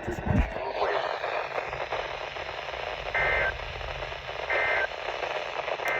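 Emergency Alert System end-of-message data tones: three short, identical bursts of two-tone digital chirping, each about a third of a second long and about a second and a half apart, starting about three seconds in. They play over steady radio static hiss and mark the end of the alert.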